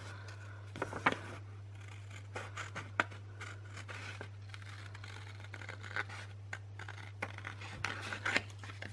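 Small scissors cutting through a sheet of painted paper: a series of irregular snips and rasps as the blades work around the outline of a drawing. A steady low hum sits underneath.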